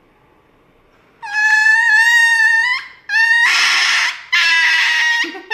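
Small white dog screaming at an injection: after about a second of quiet, three long, high-pitched wails, the first held clear and steady and the later ones harsher and more ragged.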